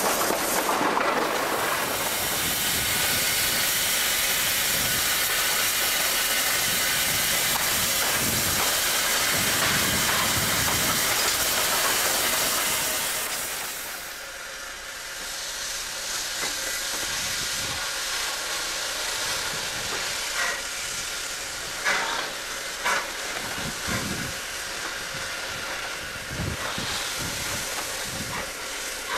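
Steam tank locomotive No. 4 Loch, a 3 ft gauge Beyer Peacock 2-4-0T, heard first from its cab as a loud, steady rush of running noise and steam. About halfway through it changes to the engine drawing its train slowly past, hissing steam from low at the front, with a few short knocks near the end.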